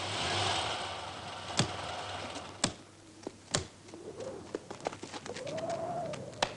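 A car pulls up, then three sharp slams about a second apart, typical of car doors shutting. Quick, light footsteps and shuffling follow, with a faint low wavering tone twice.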